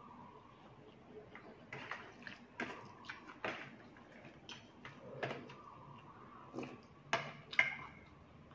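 Eating sounds of a person chewing and slurping khanom jeen rice noodles in red curry sauce: irregular wet mouth clicks and smacks, the loudest two near the end.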